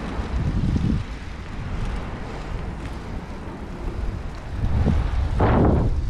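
Wind buffeting the microphone of a camera riding on a moving bicycle, a steady low rumble that swells in gusts, briefly about a second in and most strongly near the end.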